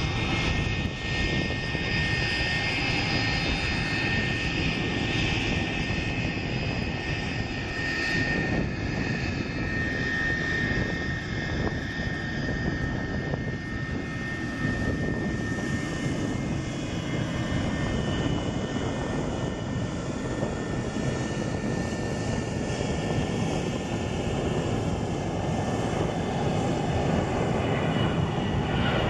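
Boeing 757-200 twin jet engines at takeoff thrust: a steady rumble with high-pitched fan whine tones as it rolls down the runway and lifts off, growing louder near the end as it climbs overhead.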